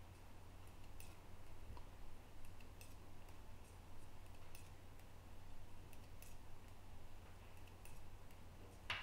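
Faint, irregular clicks of two knitting needles touching as knit stitches are worked, over a low steady hum.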